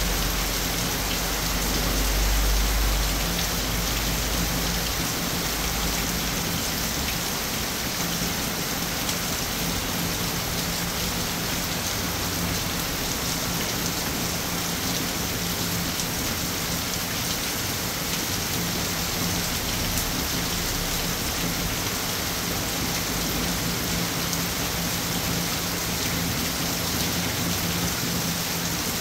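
Steady, even rain falling on a surface. A low rumble swells about two seconds in and fades out by about five seconds.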